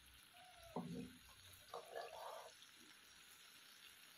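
Faint sizzling of crab fat and egg frying in oil in a pan, with a couple of brief faint sounds in the background about one and two seconds in.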